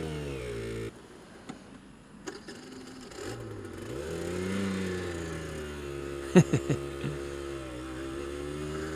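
Aprilia RS125's 125 cc single-cylinder two-stroke engine running as the bike is ridden. About a second in the revs fall and it drops to a low, quiet run. It picks up in a rising and falling rev around four to five seconds in, then runs steadily, with a few sharp clicks about six to seven seconds in.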